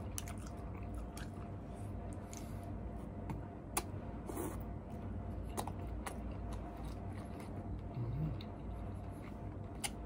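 A person chewing a mouthful of noodles with closed mouth, with scattered short wet mouth clicks over a steady low hum.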